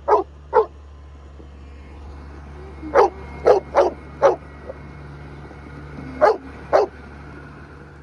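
A dog barking: about eight short barks, a pair at the start, a quick run of four around the middle, and another pair near the end, over a steady low hum.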